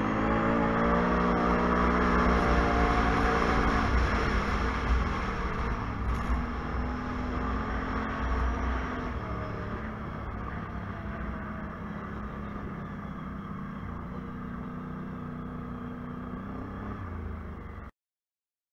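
ATV engine running while riding, its pitch climbing in the first second as it accelerates, then holding steady, with wind rush over the camera; the sound slowly grows quieter and cuts off suddenly near the end.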